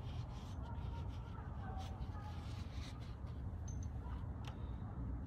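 Steady low wind rumble on the microphone, with a few faint clicks and rubbing as hydraulic hose couplers are wiped clean and handled.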